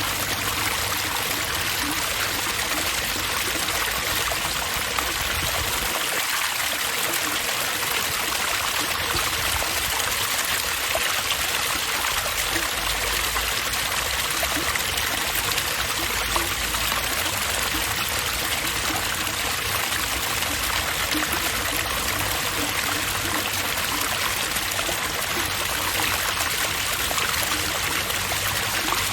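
Water running and splashing steadily in an outdoor park water feature, an even, unbroken rush.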